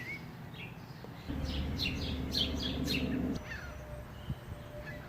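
Birds chirping faintly, with a low steady rumble that starts about a second in and stops sharply a couple of seconds later.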